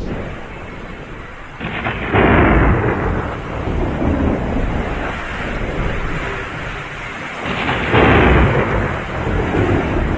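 Heavy storm rain with two long rolls of thunder, the first starting about a second and a half in and the second about seven and a half seconds in.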